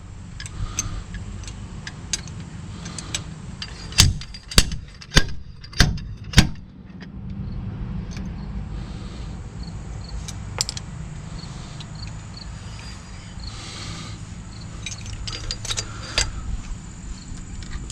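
Sharp metal-on-metal strikes and clinks as an old rear axle bearing is knocked out of a pickup's axle tube without a bearing puller: five hard blows about half a second apart around the middle, lighter taps and clinks before and after, over a steady low hum.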